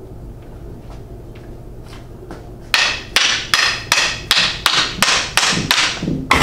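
A wooden meter stick striking a rolling bowling ball again and again from behind, pushing it along. There are sharp knocks about two and a half times a second, starting a little under three seconds in.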